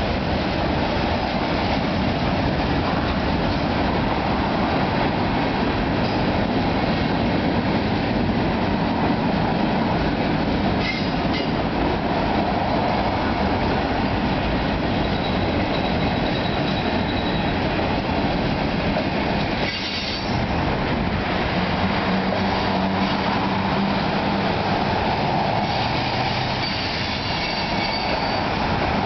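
Freight train cars rolling past at close range: a steady rumble and rattle of steel wheels on rail, with faint high wheel squeal coming and going.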